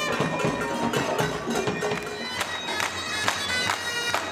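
Bagpipe folk music playing a sustained melody, with a sharp regular beat about twice a second.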